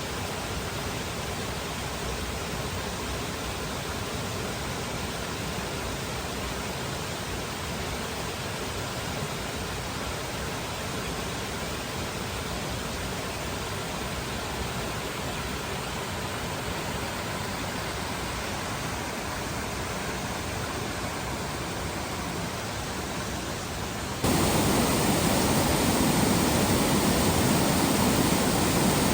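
Steady rushing of flowing water. It becomes suddenly louder and fuller about 24 seconds in.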